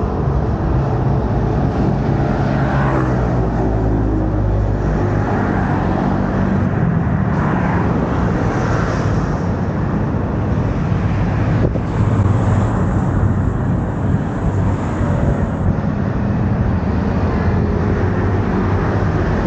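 Road traffic on a bridge roadway: a city bus and cars driving past, with steady engine hum and tyre noise. A single sharp click about twelve seconds in.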